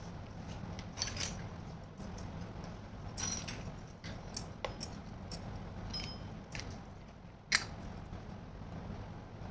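Small plastic toy kitchen pieces clicking and clinking as they are handled, in scattered single taps, a few with a short bright ring, the sharpest click about three-quarters of the way through.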